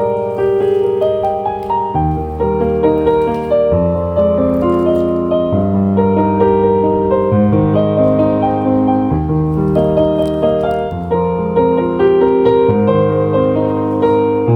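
Background piano music: a slow, gentle tune over held chords that change about every two seconds.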